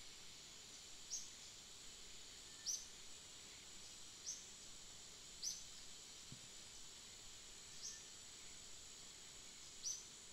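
Outdoor insect drone, steady and high-pitched, with a short, sharp, falling chirp repeating about six times, one to two seconds apart.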